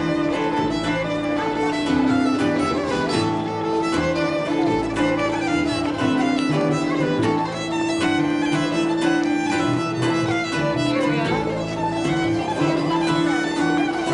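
Instrumental band music led by a fiddle playing long held notes over a steady rhythm.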